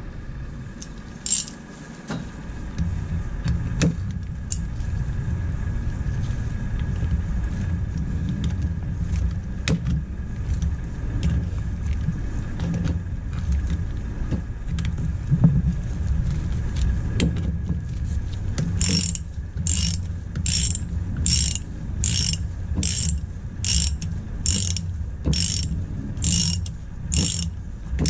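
Socket ratchet clicking in regular back-strokes, about three every two seconds, as the bolts of a power steering pump bracket are run down; the clicking starts about two-thirds of the way in. Before it come scattered small clicks and knocks of tools on metal parts, over a low steady rumble that comes in about two seconds in.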